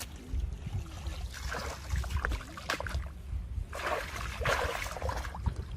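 Water sloshing and splashing in three or four short bursts over a steady low rumble.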